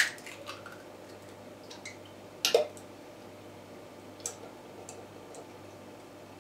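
Sharp taps cracking a raw egg's shell to open it for separating the white. There is one tap right at the start and a louder double tap about two and a half seconds in, then a faint click.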